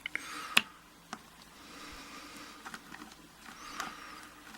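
A sharp click about half a second in, a smaller one shortly after, then faint ticks and soft scraping: the lock and tools being handled as the lock is taken apart.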